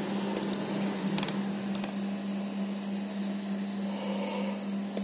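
A steady low hum over an even hiss, with a few light clicks scattered through.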